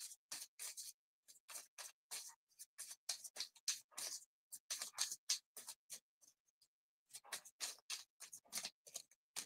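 Tarot deck shuffled by hand: a faint, quick run of soft card flicks and taps, pausing for about a second about six seconds in before starting again.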